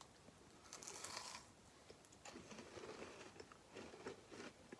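Faint crunching as a Choco Mucho bar, white chocolate over a chocolate cookie centre with cereal crispies, is bitten and chewed. The sharpest crackle comes about a second in, and softer chewing follows.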